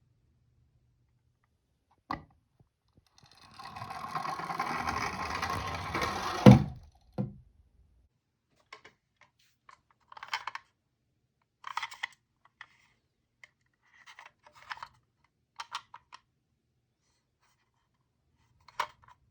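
Toy minicar rolling down a slope with a steady rattling rumble for about three seconds, ending in a sharp knock and a smaller second knock. After that come scattered light clicks and taps of the toys being handled.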